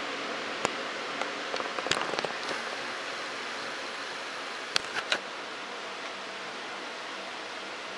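Steady hiss with small clicks and rustles from a hand handling a smartphone: a single click about half a second in, a cluster of light ticks around two seconds, and three sharp clicks about five seconds in.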